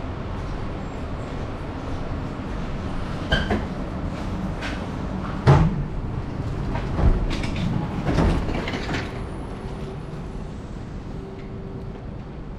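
Changi Airport Skytrain people mover rumbling as it comes to a stop, its sliding doors opening with a loud clunk about five and a half seconds in, with a few lighter knocks before and after; the rumble eases off near the end.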